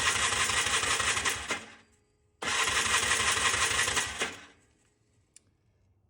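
2000 Polaris Trailblazer 250's two-stroke single-cylinder engine being cranked over twice for a compression test, each spell a steady rhythmic churning of a couple of seconds, without starting. The engine has low compression, about 60 psi, which the mechanic puts down to worn piston rings.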